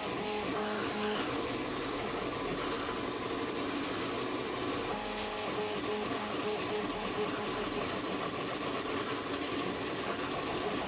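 A 3D printer's stepper motors running during a print, humming in steady pitched tones that start and stop in short runs.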